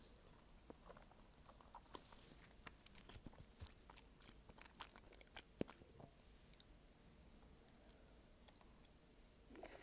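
A person chewing a mouthful of malatang close to the microphone: quiet, wet clicks and crunches of chewing for the first several seconds, easing off for a few seconds, then a brief louder burst of noise just before the end.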